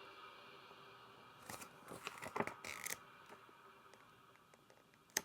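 Faint paper and cardboard rustling and handling, a few light scrapes and clicks, as a printed booklet is taken out of a keyboard box, with one sharp tick near the end.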